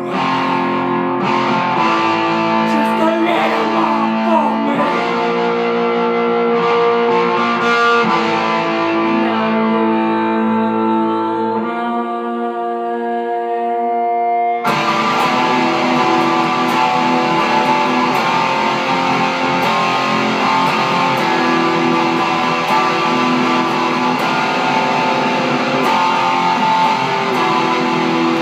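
Red SG-style electric guitar playing held notes and chords. About halfway through it switches suddenly to a denser, brighter strummed part.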